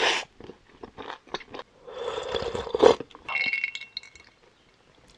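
Close-up clinks and scrapes of tableware and utensils, with wet squishy food being handled: scattered short clicks, then two longer noisy stretches, the second with a faint ringing tone.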